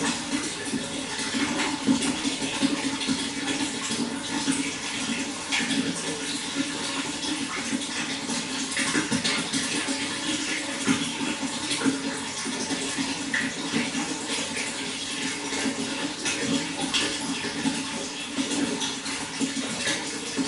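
Running water splashing and gurgling steadily, full of small irregular splashes, with no change in level.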